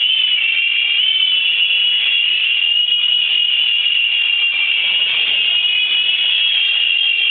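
Mini Cobra RC helicopter's small electric motors whining steadily at a high pitch, the pitch shifting slightly up and down.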